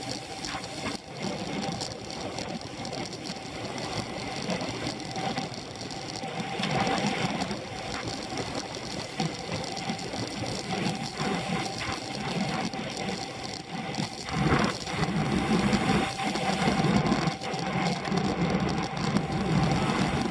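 Scott Foil road racing bike with a Dura-Ace drivetrain running at race speed, its chain, hubs and tyres making a steady mechanical whirr, picked up through a handlebar-mounted camera. It gets somewhat louder about two-thirds of the way in.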